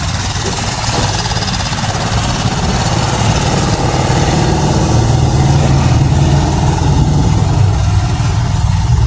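An engine running steadily, close by, with a low, rapid pulsing that grows a little louder through the stretch.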